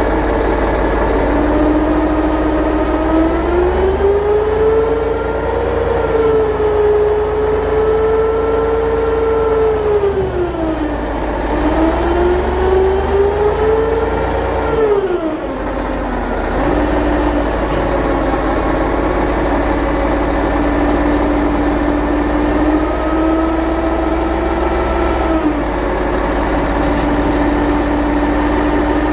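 A vehicle engine running, its pitch rising and falling as it revs up and eases off: up a few seconds in, down again around a third of the way through, up and down once more near the middle, then steady and lower, with a short rise and drop near the end.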